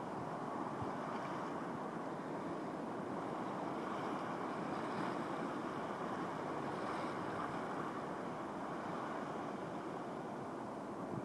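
Ocean surf breaking on a distant reef edge, heard as a steady rush without distinct separate wave crashes.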